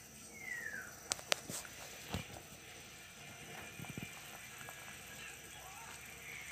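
A pot of pork sinigang simmering gently on the stove, a faint steady background. Near the start there is a short falling chirp, and a few sharp clicks come between about one and two seconds in.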